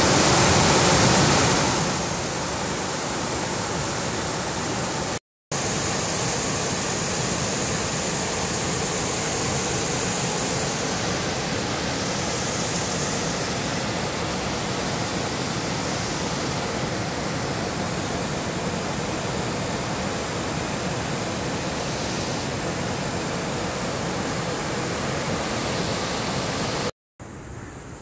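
Water gushing through the open gates of a dam spillway and rushing down the channel below: a loud, steady rush, loudest in the first two seconds, with a brief break about five seconds in. It drops to a much quieter rush just before the end.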